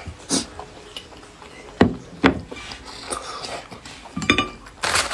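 Eating noodle soup with utensils: about five separate knocks and clinks against a bowl, one of them ringing briefly a little past the four-second mark.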